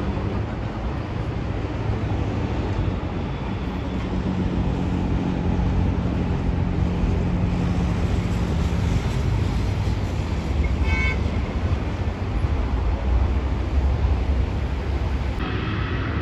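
Jet airliner engines running, a steady roar with a low rumble that grows louder past the middle.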